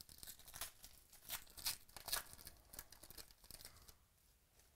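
Foil trading-card pack wrapper being torn open and crinkled: a run of quick, crackly rips that dies away about four seconds in.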